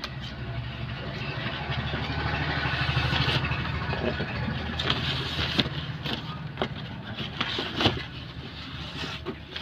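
Corrugated cardboard wrap and bubble wrap rustling and crackling as they are pulled back inside a cardboard shipping box, with a few sharp clicks. A low rumble runs underneath, loudest a few seconds in.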